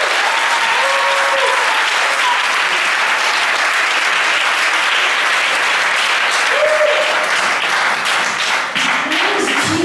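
Audience applauding, with a few voices calling out over the clapping; the applause thins out near the end.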